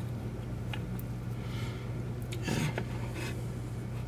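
Quiet close-up handling: a cotton bud rubbing and dabbing on a plastic model's window, with faint light ticks over a steady low hum. A breath or sniff about two and a half seconds in.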